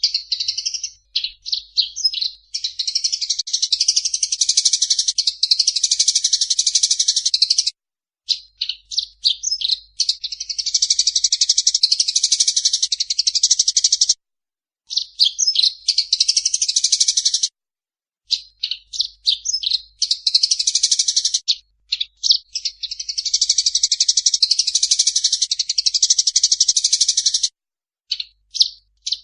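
Eurasian tree sparrows giving their fighting chatter: strings of sharp, high chirps that run into long, dense chattering bouts several seconds each, broken by short pauses.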